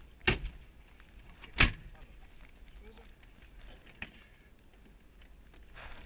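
Two sharp clunks about a second and a half apart, then a lighter click about four seconds in, from hands handling the door and fittings of a light aircraft's cabin.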